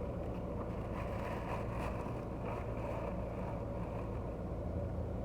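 Car engine running steadily, heard from inside the cabin as a low, even hum.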